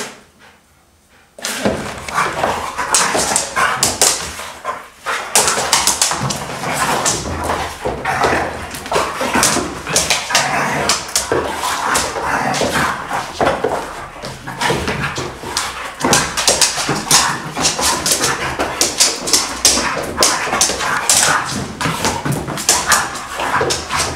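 Two dogs, a Hungarian vizsla and a black-and-white pointer, play-fighting: a continuous scuffle of whines, growls and barks with many sharp clicks and snaps, starting about a second and a half in.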